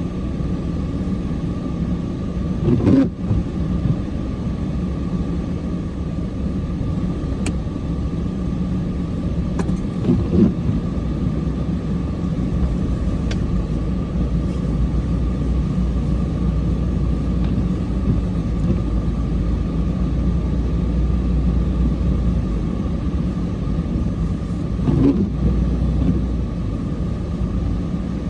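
Vehicle engine running steadily with a constant whine above it. A few dull thumps come through, about three seconds in, around ten seconds in and near the end.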